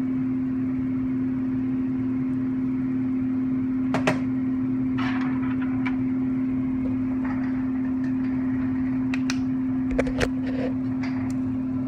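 A steady machine hum holding one even tone, with a few light clicks and knocks about four seconds in and again near the end.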